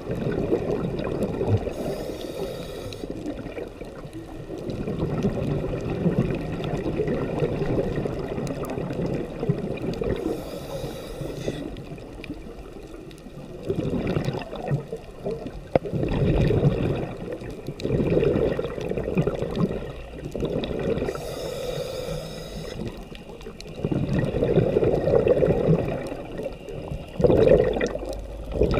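Underwater sound of scuba diving: a muffled, continuous gurgling rush of water and breathing, with a hissing burst of exhaled regulator bubbles three times, roughly every ten seconds.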